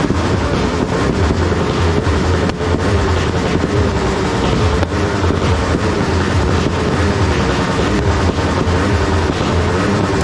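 Dense, continuous barrage of firecrackers and fireworks blending into one loud, constant rumble, with many overlapping pops and crackles throughout.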